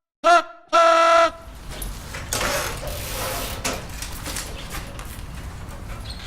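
Vehicle horn sounding twice, a short toot then a longer blast, followed by a steady low rumble and clatter of background noise.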